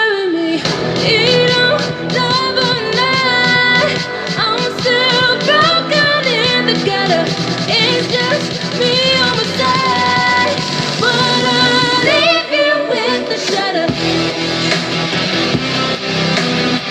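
Pop song with a sung vocal line and full backing, played through a Modernista Sound Box 100 Bluetooth party speaker.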